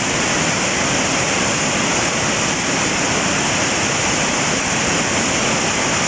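Fast, muddy water rushing over rocks in a waterfall's rapids: a loud, steady, unbroken rush of white water.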